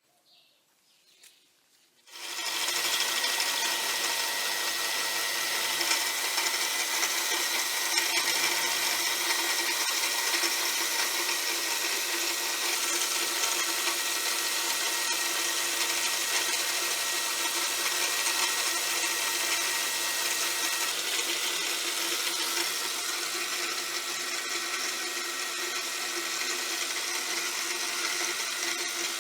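Metalworking machine tool switched on about two seconds in, then running steadily while cutting hex flats on a steel bar.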